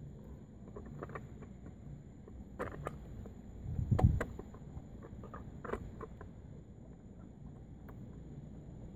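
Faint clicks and scrapes of a screwdriver driving the screws of the small top cover on an electric water pump, with a louder dull knock about four seconds in.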